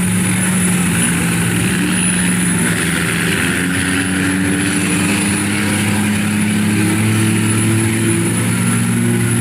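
Lifted Ford Super Duty mud truck's diesel engine running hard under load as it churns through a deep mud pit: a steady drone that shifts slowly in pitch, with a high whistle above it, and mud and water splashing.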